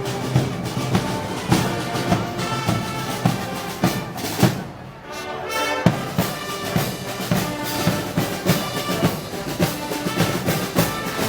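Festival brass band music, brass over a steady drum beat, dipping briefly about halfway through before resuming.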